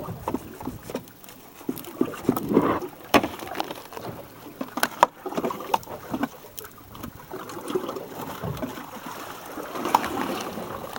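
Water sloshing and lapping against a boat's hull, with irregular knocks and clatters on the boat.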